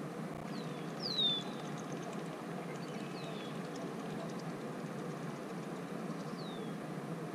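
Four short whistled bird calls, each sliding down in pitch; the second, about a second in, is the loudest. Under them runs a steady low rush of outdoor background noise.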